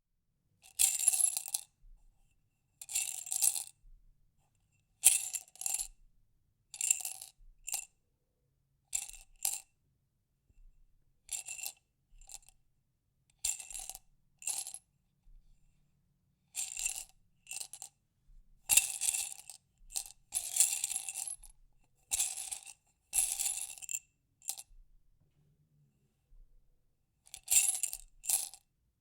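Small hard objects shaken and rattled inside a glass jar, in repeated short bursts of clinking with pauses of a second or two between them.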